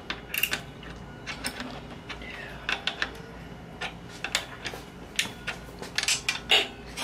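Steel combination wrench clicking and clinking against a brake-line banjo bolt as it is turned and repositioned in short strokes: a string of sharp, irregular metal clicks, a few a second.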